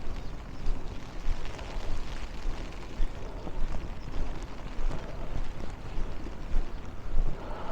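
Wind buffeting the microphone in gusts, a deep unsteady rumble with a hiss over it.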